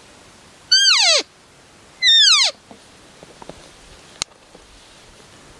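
Two cow-elk mews blown on a hand-held elk call, each about half a second long and falling steeply in pitch, a little over a second apart. A single sharp click follows about four seconds in.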